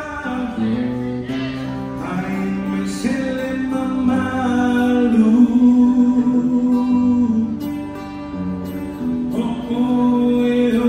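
Live Polynesian song for a slow women's dance: a group of voices singing long, held lines over guitar accompaniment.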